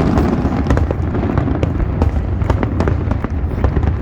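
Fireworks display: many shells cracking and popping in quick succession over a continuous low rumble of booms.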